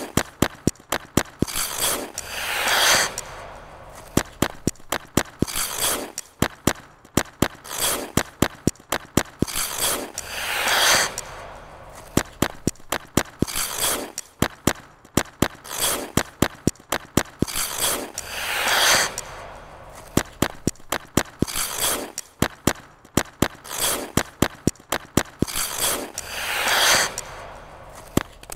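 Figure skate blades on ice: quick sharp taps and clicks of blades and toe picks several times a second, with a longer scraping swish of a blade edge about every four seconds, the whole pattern repeating in a steady rhythm about every eight seconds.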